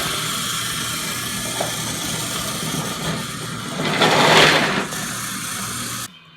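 Remote-control toy train's small electric motor running steadily as it goes along its track. A louder rushing noise comes about four seconds in, and the sound cuts off suddenly just before the end.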